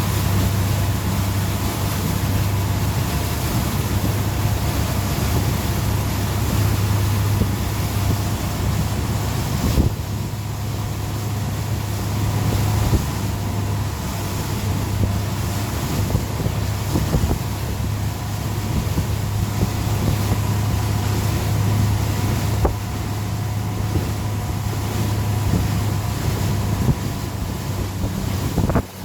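Tow boat's engine running steadily at towing speed, a low drone with a steady hum, with wind noise on the microphone. The sound drops off sharply at the very end.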